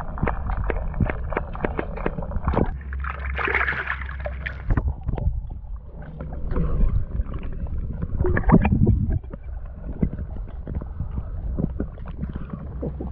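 Water sloshing and gurgling around a camera held underwater, with many small knocks and bumps against it and a steady low rumble. Two louder swirls of splashing come about three seconds in and again about eight seconds in.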